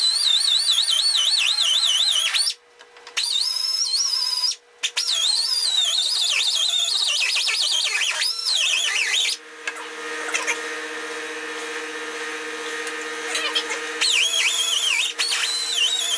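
Small die grinder grinding steel to open out a drilled hole: a high whine that wavers in pitch as the bit bites. It stops briefly twice in the first five seconds, runs lighter and steadier from about 9 to 14 seconds, then bites hard again near the end.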